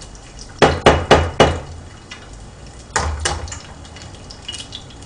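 A raw egg knocked against the rim of a frying pan to crack it: four quick taps about half a second in, then two more near the three-second mark.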